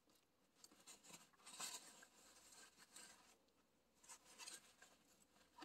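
Faint rustling and rubbing of work gloves and a shop rag on a hydraulic hose quick-coupler as it is worked loose, with the tractor engine off. There are a few soft brushes, the clearest about one and a half seconds in and again about four seconds in.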